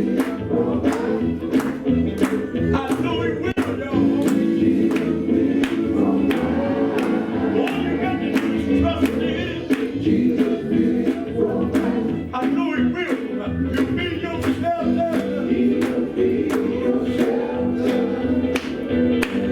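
Live gospel music: a group of voices singing with the band, over a steady beat of about two hits a second.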